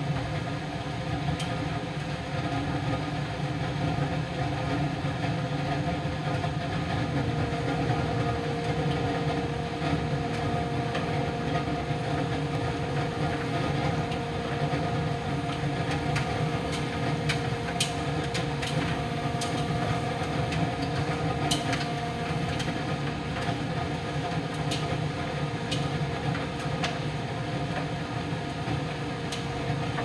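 Miele PT 5136 tumble dryer running steadily with its drum turning, ten minutes from the end of a normal drying programme. A steady tone joins the hum about seven seconds in, and a few faint clicks come midway.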